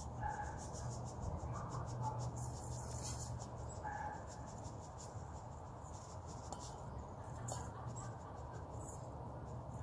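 Cornmeal pouring from a canister into a measuring cup, a faint dry hiss, with a few short bird chirps and a steady low hum behind it.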